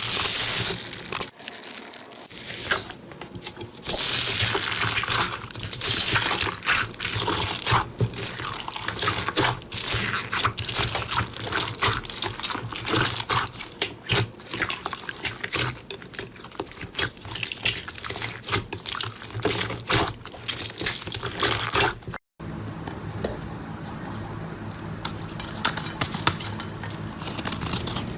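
Slime being squished and worked by hand, a dense run of wet clicks, pops and crackles. It cuts off briefly about 22 seconds in, then a similar squishing continues.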